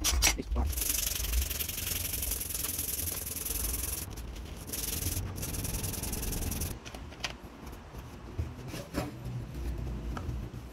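A strip of 100-grit dry sandpaper pulled back and forth around a knife's wooden full-tang handle, rasping steadily for about six seconds. It then turns fainter, with a few scattered knocks.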